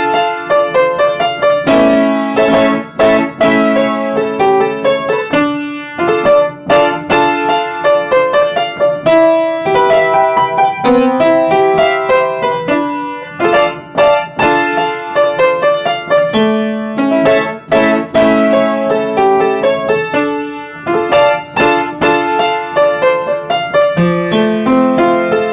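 Solo piano playing an instrumental passage of struck chords and melody notes.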